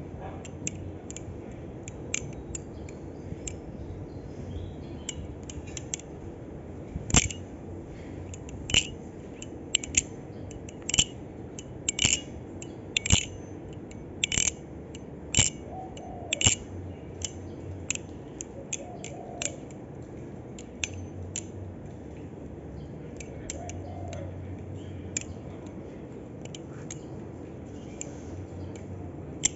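Balisong (butterfly knife) being flipped: crispy metallic clicks as the handles swing around the pivots and slap together, roughly once a second, loudest and most frequent in a run through the middle, over a steady low background noise.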